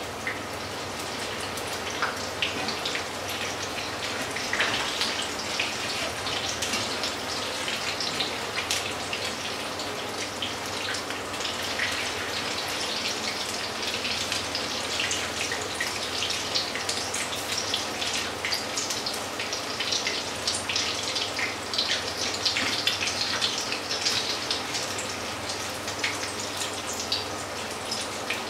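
Fritters frying in a pan of hot shallow oil: a steady sizzle with dense crackling and spattering.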